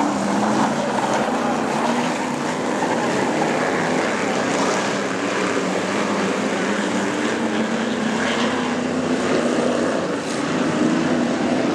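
Engines of several winged supermodified speedway cars lapping a dirt track together, a steady, loud, overlapping engine drone with no breaks.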